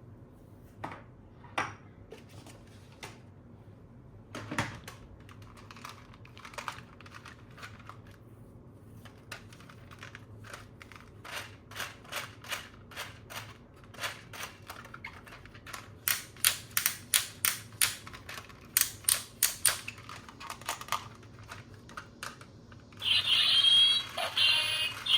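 Plastic toy parts being handled, making sharp clicks and taps, sparse at first and then a fast run of louder clicks. Near the end an electronic sound effect from a battery sound-and-light toy starts up, a loud warbling tone.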